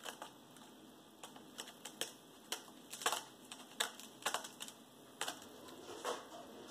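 Cat's claws catching and scraping on a sisal-rope scratching post, an irregular run of short scratchy clicks, a few a second.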